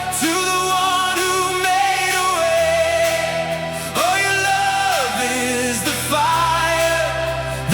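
Worship song: a melody sung with sliding, bending notes over held bass notes that change twice.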